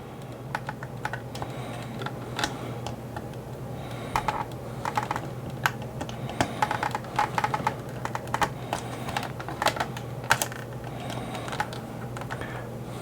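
Metal screwdriver tips clicking and scraping against the hard plastic of a 1983 G.I. Joe Skystriker toy jet while prying out its small one-way pins, in quick irregular clicks that bunch together in the middle, over a steady low hum.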